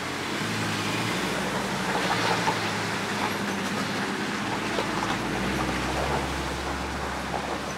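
Minibus and bus engines running at low speed as they drive through a flooded, muddy road, over a steady wash of water and traffic noise. A deeper engine hum comes in about five seconds in.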